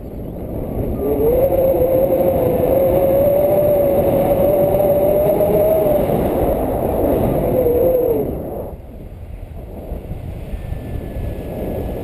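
Wind rushing and buffeting over the camera microphone on a paraglider in flight, louder for most of the time and easing off near the end. A single steady tone sits over the rush for about seven seconds.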